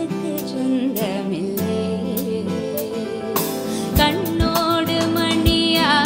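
Background music: a song with a singing voice over sustained instrumental notes, and a beat comes in about four seconds in.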